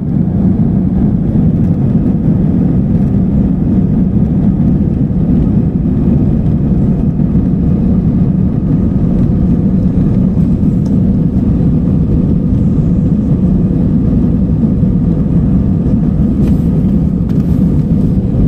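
Jet airliner cabin noise heard from a window seat over the wing: a steady, loud, low rumble of engines and wheels as the plane rolls along the ground.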